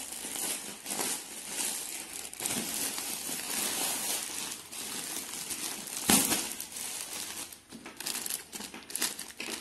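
Plastic courier mailer bags crinkling and rustling as they are pulled open and unwrapped by hand, with a sudden, louder crackle about six seconds in.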